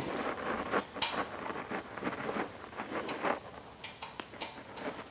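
Light clicks and scraping of small metal parts handled by hand as a small screw is fitted into a log splitter's cast valve housing, with a sharper click about a second in.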